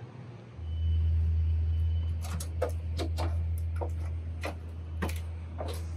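Footsteps climbing a portable aircraft boarding ladder, a series of uneven knocks and clanks on the steps, over a steady low hum.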